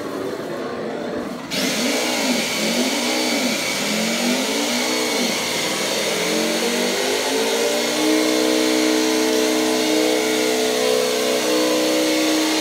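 Radio-controlled General Lee toy car doing a burnout: its engine sound revs up and down several times, then holds a steady high note. A hiss starts suddenly about a second and a half in and runs under it.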